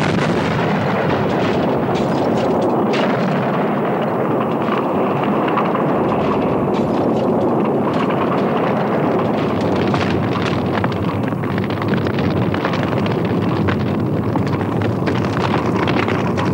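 An explosion's blast right at the start gives way to a large fire burning with a steady roar and dense crackling.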